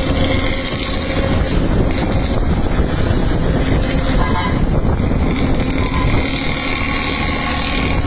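Putri Luragung intercity bus, fitted with a growling 'ngorok' exhaust, running along at speed. Its engine and exhaust rumble steadily under road noise, with wind on the microphone.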